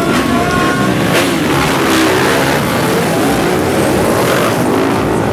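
A pack of trail motorcycles running together, their engines idling and revving over one another at a mass start.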